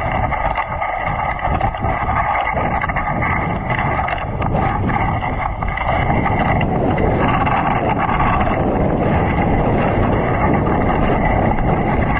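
Dog sled gliding over snow: a steady scrape and hiss from the runners, wind buffeting the sled-mounted microphone, and many small clicks and rattles from the sled.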